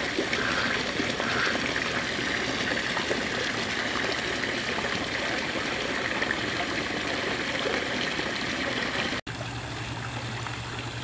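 Steady trickling and running of water spilling into a swimming pool. About 9 s in the sound cuts off abruptly and resumes quieter, with a steady low hum underneath.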